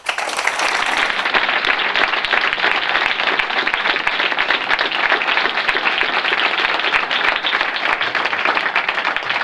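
Audience of several dozen people applauding steadily, a dense patter of many hands clapping.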